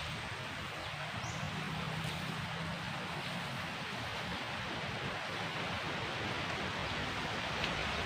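Steady, even rush of water outdoors, with a faint low hum for a couple of seconds in the first half.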